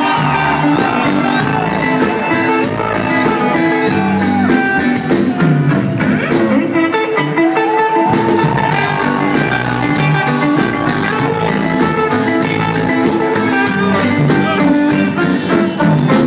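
Live rock band playing at full volume: electric guitar playing a melodic line with bent, gliding notes over bass and a drum kit keeping a steady beat.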